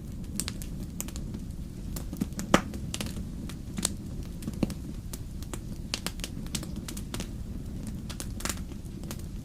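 Wood fire burning in a fireplace: a steady low rumble of flames with irregular crackles and pops, the loudest pop about two and a half seconds in.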